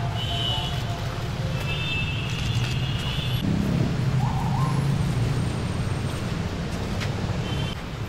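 Steady low rumble of vehicle engines and traffic, with a few high whistling chirps over it: one about half a second in, a longer one from about two to three and a half seconds, and a short one near the end.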